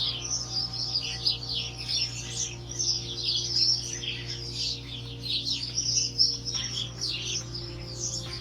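A dense chorus of small birds chirping and twittering, with many short calls overlapping continuously. Beneath it run a steady low hum and faint held tones that shift about six and a half seconds in.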